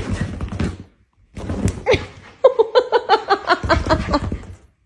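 Dogs thudding and scrambling on a leather couch during post-walk zoomies. From about halfway through comes a quick run of high-pitched vocal sounds, about five a second, which are the loudest part.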